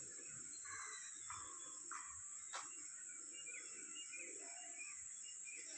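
Faint, steady, high-pitched chirring, with a few soft clicks scattered through it.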